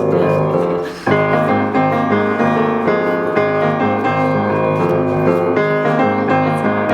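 Piano music, dropping out briefly about a second in before going on.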